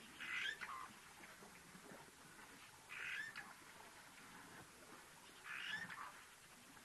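A short animal call repeated three times, about two and a half seconds apart, over faint bush background.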